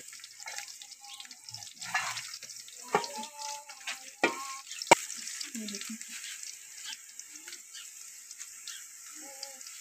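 Sliced onions frying in oil in an aluminium pot, nearly browned, with a faint steady sizzle. A few sharp clicks break in around the middle, the loudest about five seconds in.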